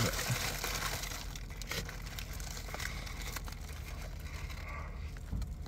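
Foil sandwich wrapper crinkling in the hands, then biting and chewing into a crispy fried chicken sandwich. A steady low hum from the car cabin runs underneath.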